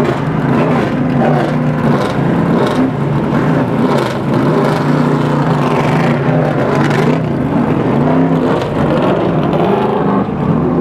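Several vintage race car engines idling and blipping their throttles as the cars roll off one after another. The pitch wavers and shifts throughout.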